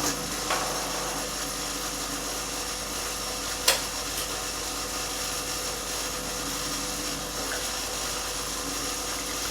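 Coffee vending machine's newly fitted Fluid-o-tech 70 W pump running steadily with a hum as it dispenses hot water, a sign the pump replacement has cured the no-liquid fault. A single click sounds about three and a half seconds in.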